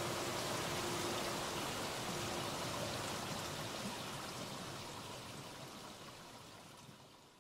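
Steady rushing of running water that fades out gradually over the last few seconds, with a faint low hum that dies away about halfway through.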